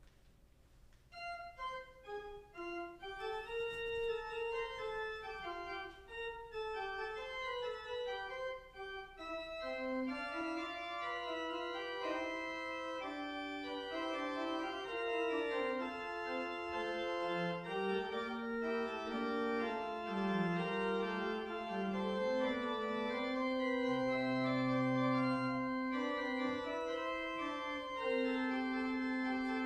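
Organ playing the postlude after the dismissal: slow chords of held notes that begin about a second in and grow fuller, with a low bass note sounding for a couple of seconds toward the end.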